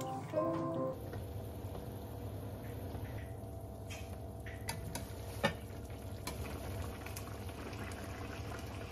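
Mapo tofu sauce simmering and bubbling in frying pans, with a few clinks of a metal ladle against the pan as tofu cubes are slid in; the sharpest clink comes about five and a half seconds in.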